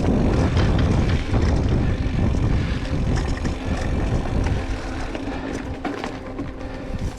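Mountain bike rolling fast over a dirt trail: tyre rumble and wind buffeting the camera's microphone, heaviest in the first few seconds and easing after.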